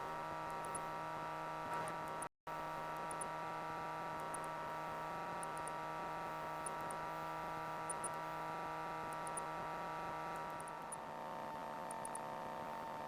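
Steady electrical hum and whine on a light aircraft's intercom audio feed, with a brief dropout about two seconds in.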